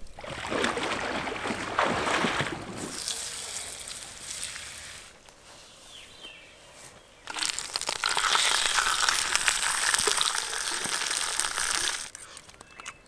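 Butter sizzling as it melts in a hot frying pan over a campfire grill, fading after a few seconds. About seven seconds in, a louder, steady crackling hiss starts and stops abruptly near the end.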